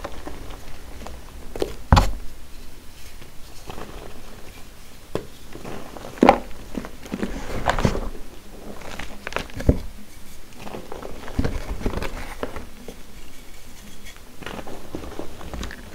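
Bare hands crushing and squeezing soft grey powdery blocks and loose charcoal-dusted powder, giving irregular crunching and crackling strokes, with a few sharper crunches about 2, 6 and 10 seconds in.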